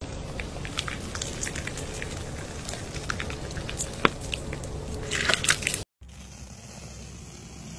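Sand pressed through a wire mesh sieve with gloved hands: soft crunching and crackling with scattered small clicks, one sharp click about four seconds in and a flurry of crackles shortly after. About six seconds in it cuts off and a quieter, steady hiss follows.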